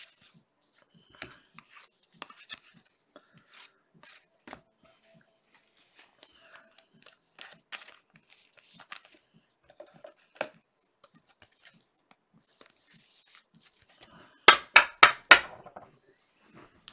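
Trading-card pack wrappers crinkling and cards being handled, with light scattered clicks and rustles. A quick run of about five sharp rips about three-quarters of the way through, as a pack is torn open.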